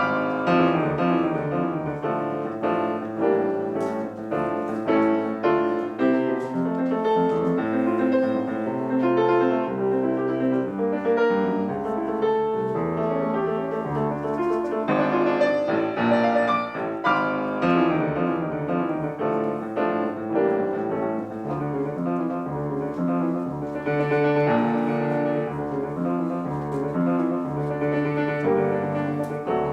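Solo piano playing a fast classical piece, a steady stream of quick notes over moving bass lines.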